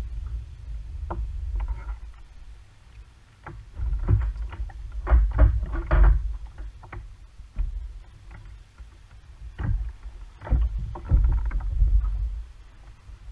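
Irregular knocks and clatter of fishing gear being handled on a plastic sit-on-top kayak, over a low steady rumble.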